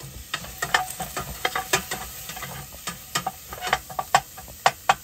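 Spatula stirring red onion sautéing in a stainless steel pot: many irregular scrapes and knocks against the pot, several a second, over a low sizzle.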